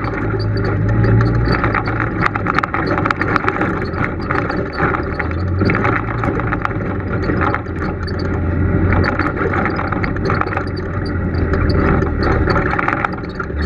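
Polaris RZR side-by-side's engine running at low trail speed, its pitch rising about halfway through and dropping near the end, with a dense run of rattles and knocks from the machine jolting over the rough dirt trail.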